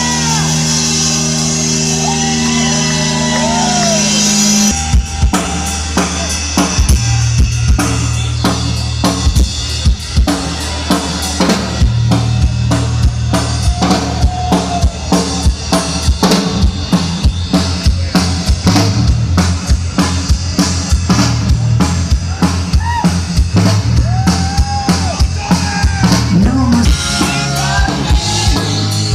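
Live rock band playing loudly. A held chord rings for the first few seconds, then the drum kit comes in with a steady beat of bass drum and snare over a bass line.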